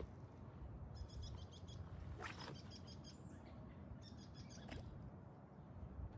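A songbird singing short phrases of quick, high repeated notes, three times, over a faint steady low rumble of wind or outdoor ambience. A brief rustle or swish comes a little after two seconds.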